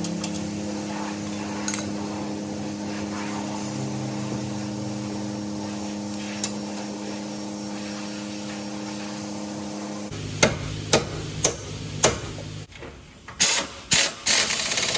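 A steady mechanical hum with several held tones. It breaks off about ten seconds in, followed by four sharp knocks about half a second apart, then a few more knocks and a short rush of noise near the end, from tool work on metal during the CV axle refit.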